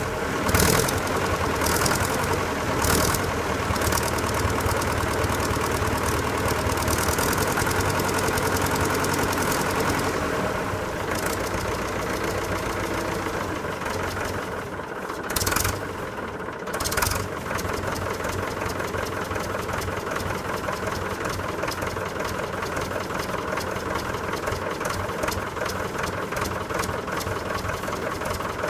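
1958 Fordson Power Major tractor's four-cylinder diesel engine running at idle, with a few short louder bursts near the start and two more about halfway through.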